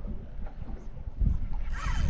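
Wind buffeting the microphone: a steady low rumble that swells about a second in, with a short burst of noise near the end.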